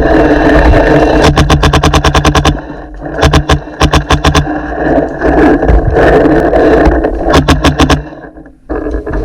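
Planet Eclipse Etha 2 .50 cal paintball marker firing three rapid bursts of shots, about ten a second: one about a second in, one around three seconds in and a shorter one near the end. A steady rumbling noise runs underneath.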